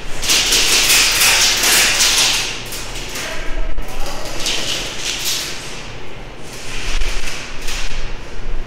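Airsoft gunfire in three bursts of rapid shots: one about two seconds long at the start, a short one in the middle and another near the end.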